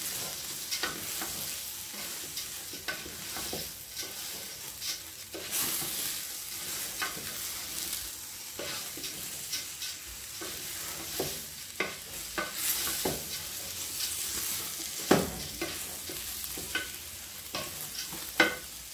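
Raw rice and meat frying in a stainless steel pot with a steady sizzle, stirred with a wooden spoon that scrapes and knocks against the pot with frequent short clicks. The sharpest knocks come about 15 seconds in and near the end.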